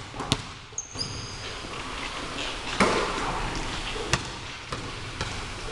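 Basketball bouncing a few times on a hardwood gym floor, sharp irregularly spaced bounces, with a couple of short high sneaker squeaks about a second in.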